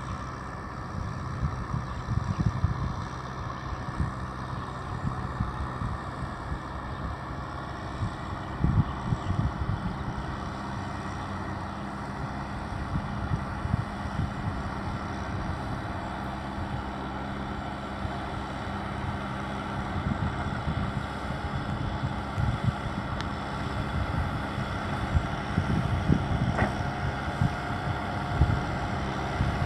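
Kubota tractor's diesel engine running steadily under load as it works a flooded rice paddy, growing a little louder as it comes nearer.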